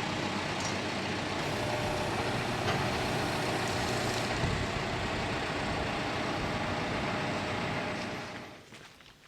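Vehicle engine running steadily, dying away near the end.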